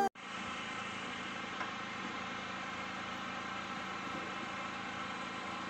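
Steady engine hum in the background, even in level throughout.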